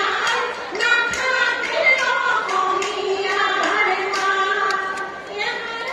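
A woman singing a song over live stage music, with sharp percussive beats throughout.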